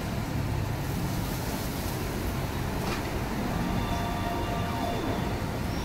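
Rice and bean sprouts sizzling on a hot flat-top griddle: a steady sizzling hiss over a low, even rumble.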